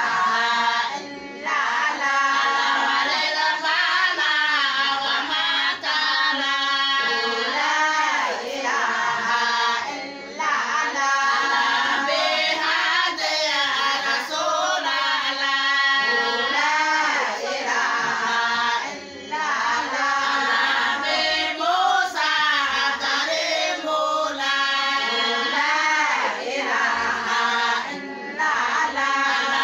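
A group of women singing a song together, their voices continuous apart from brief pauses between phrases.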